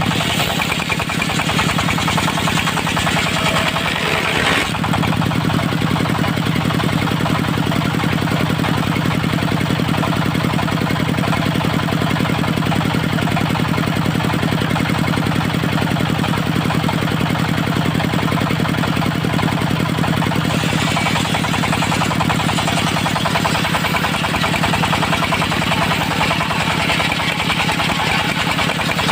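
Engine of a portable circular sawmill running steadily with a fast even pulse. Its sound changes about five seconds in, and a higher hiss comes back about twenty seconds in.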